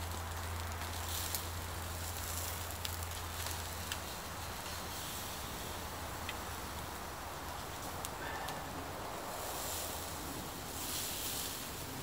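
Strip steak sizzling on a wire grill rack over campfire coals, a steady hiss with scattered small crackles and clicks as the meat is turned.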